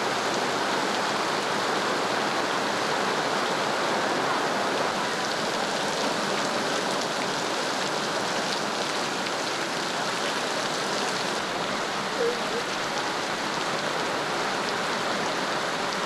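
Heavy downpour: rain pouring down in a steady, even hiss.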